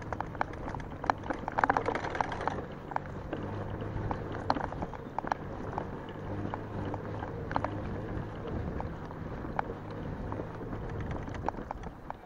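Homebuilt 52-volt electric mountain bike riding along a rough gravel forest track: the tyres crunch over the stones, with frequent sharp rattles and knocks from the bike over bumps, busiest in the first couple of seconds. A low steady hum comes and goes under it.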